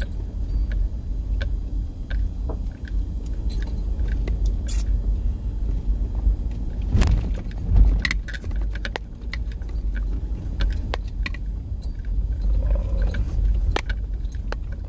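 Car driving across rough desert ground, heard from inside the cabin: a steady low rumble with scattered rattles and knocks from the interior, and a heavier jolt about seven to eight seconds in.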